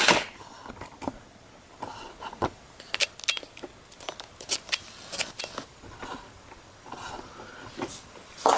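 Packaging and small model crane parts being handled: scattered light clicks and rustles.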